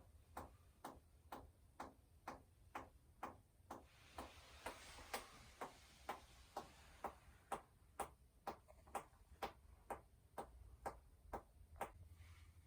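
Steady, faint ticking, about two sharp ticks a second, with a soft hiss about four to seven seconds in.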